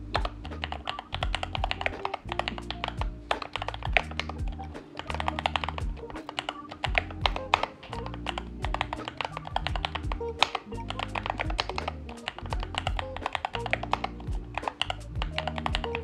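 Continuous fast typing on a Keychron K8 Pro mechanical keyboard with factory-lubed Gateron Jupiter Red linear switches and OSA double-shot PBT keycaps, stock with no tape mod: a dense, uneven run of key strokes. Background music with a bass line plays underneath.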